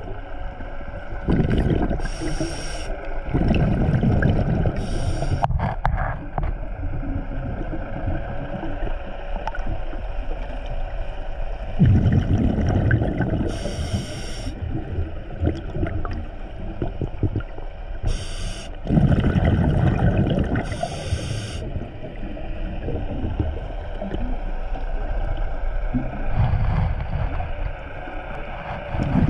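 Scuba diver's breathing through a regulator, heard underwater: a bubbling, gurgling surge from each exhalation every several seconds, with short hisses of air drawn through the regulator between them.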